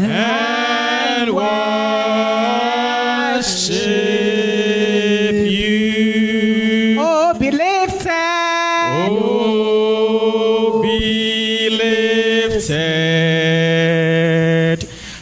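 A woman singing a slow worship song into a microphone, holding long notes and sliding between pitches.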